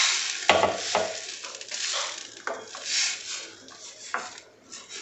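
A slotted steel spatula stirring a wet ground-coconut paste in a stainless-steel kadai, scraping the pan in repeated irregular strokes, while the mixture sizzles in the hot pan.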